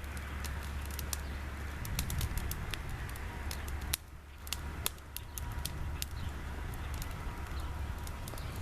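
Burn pile of twigs, paper and plastic burning, crackling with frequent sharp pops over a steady low rumble.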